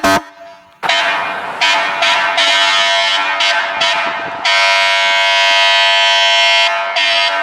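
Fire truck horn blasting: uneven blasts starting about a second in, then one long steady blast near the end.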